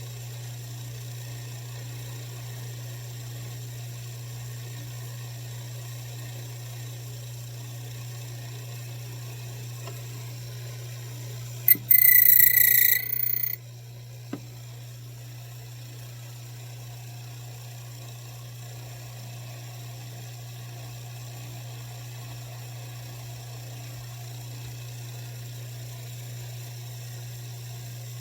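Key-cutting machine running with a steady low hum. About twelve seconds in, a loud high-pitched whine lasts about two seconds as the cutter bites into a Schlage key blank.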